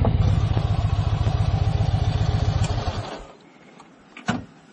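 Yamaha XV1900 Midnight Star's big air-cooled V-twin running with a steady low pulse, then switched off about three seconds in. A single short knock follows near the end.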